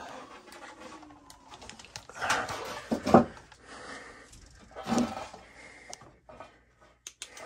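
Sheet-metal furnace flue pipe being worked loose and pulled down: a few irregular scrapes and knocks, the sharpest about three seconds in.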